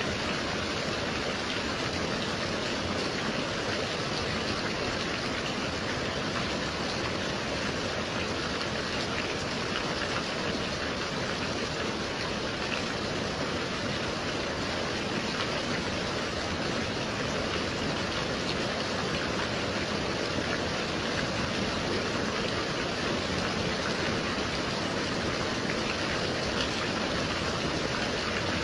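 Gentle rain falling steadily, an even wash of rainfall that holds the same level throughout.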